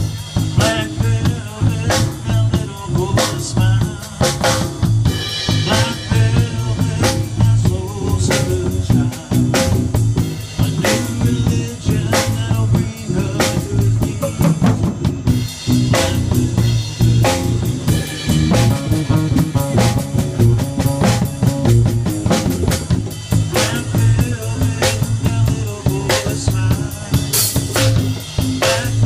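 Live music without singing: a guitar played over a steady beat of percussive hits and a deep bass.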